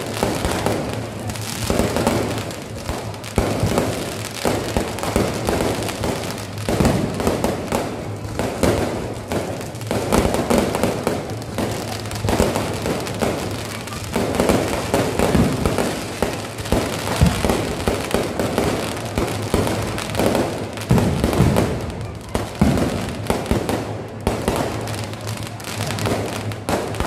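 Fireworks display: aerial shells and firecrackers going off in quick succession, a dense run of bangs and crackling with no pause.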